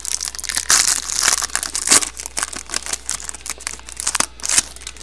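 Plastic wrapping on a box or pack of trading cards being torn open and crinkled by hand: a busy run of sharp crackles and crinkles.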